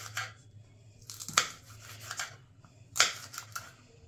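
Kitchen knife cutting crisp raw vegetables on a chopping board: three sharp knocks of the blade on the board, each followed by a few smaller crunching ticks.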